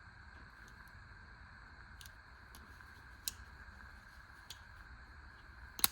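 Push-button mini multi-knife being worked: a handful of small, sharp mechanical clicks spaced irregularly, the loudest just before the end, as the spring-loaded blade is pushed and snaps in and out.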